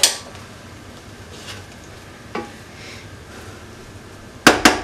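A wooden spatula knocking against the rim and sides of a nonstick cooking pot while cooked rice is turned over. There are a couple of scattered knocks, then near the end a quick run of loud knocks, about four a second, each ringing briefly.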